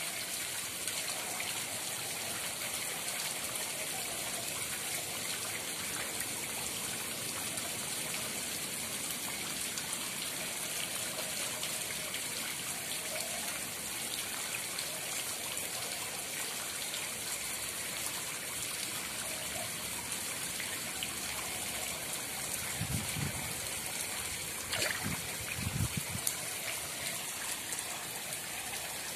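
Koi pond water trickling and splashing steadily as the fish churn the surface. A few low thumps near the end.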